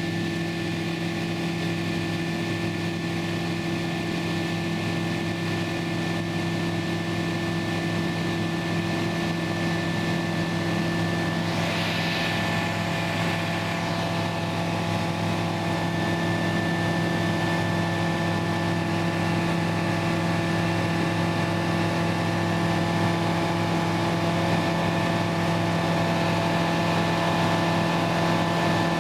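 Aircraft engine droning steadily, a constant hum with several held tones, slowly growing a little louder; a short hiss swells about twelve seconds in.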